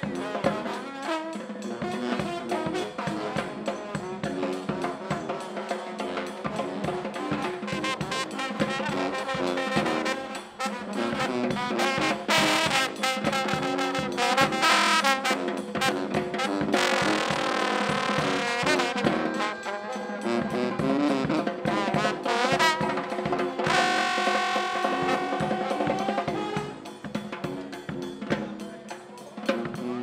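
Street brass band playing: trumpet, trombone and sousaphone over a steady bass drum and snare beat, with the horns getting louder several times in the middle.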